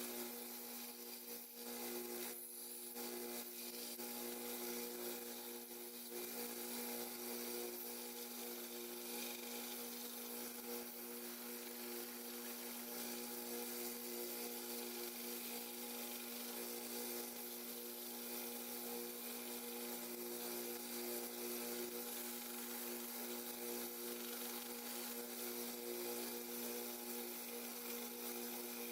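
Electric bench sander's motor running with a steady hum and a faint even hiss, as a knife's acrylic handles are sanded down to the liners.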